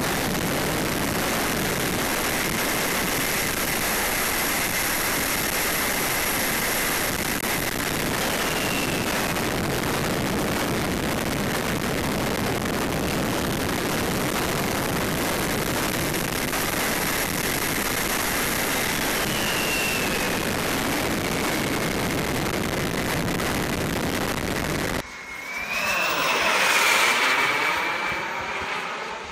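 JETS-MUNT M70XBL turbine of an L-39 model jet heard from a camera on the flying jet: a steady rush of air with a thin turbine whine, which briefly rises in pitch twice. About 25 seconds in, the sound switches to the jet passing overhead as heard from the ground. Its turbine whine swells and bends up then down in pitch as it goes by, then fades.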